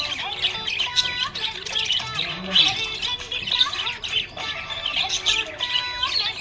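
Budgie chirping and warbling: a fast, unbroken run of high chirps, short squawks and quick pitch slides.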